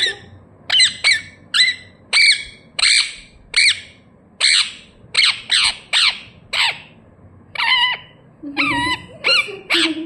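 Indian ringneck parakeet squawking over and over: short, sharp, high calls, roughly one or two a second, with a longer wavering call near the end.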